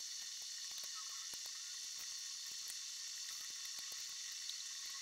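Steady faint hiss with a few thin, high whining tones and scattered small crackles. There is no speech.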